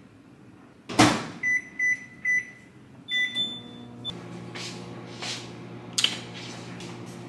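Microwave oven door shut with a thud, three keypad beeps, a longer start beep, then the oven running with a steady low hum. A few light clatters sound over the hum.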